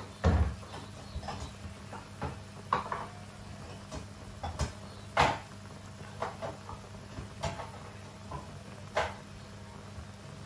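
Pan of water at a rolling boil with instant noodles in it, giving irregular pops and crackles several times a second over a low steady hum. A louder low thump comes just after the start.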